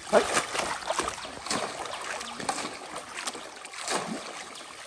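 Water splashing and sloshing in irregular bursts as people wade through a shallow, muddy pond, driving fish toward a cast net.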